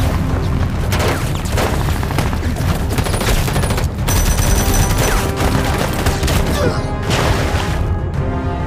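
Rapid, sustained gunfire, many shots in quick succession with a brief lull about four seconds in, over background music.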